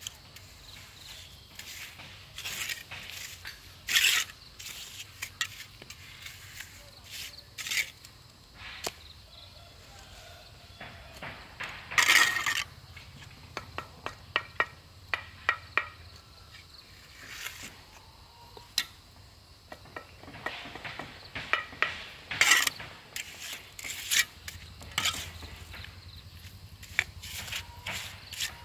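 Irregular clinks and knocks of hard objects being handled, with a few louder impacts at about 4, 12 and 22 seconds in.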